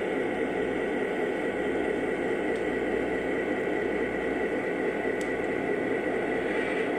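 Model train passenger cars rolling past on the track: a steady rumble and hiss of wheels on rails, with a couple of faint clicks.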